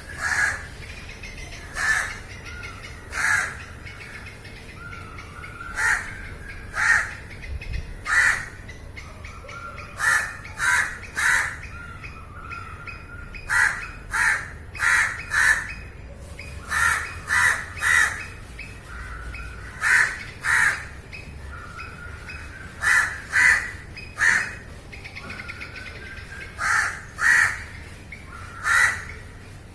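Crows cawing over and over: short loud caws, mostly in pairs or threes, with brief pauses between groups and fainter caws in between.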